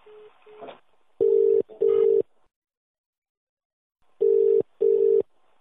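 British telephone ringing tone heard down the line by the caller: two double rings ('ring-ring'), about two seconds apart, meaning the called phone is ringing and has not yet been answered.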